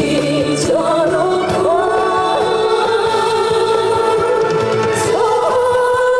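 A woman singing a Korean song live into a microphone over a backing track, her voice holding long notes.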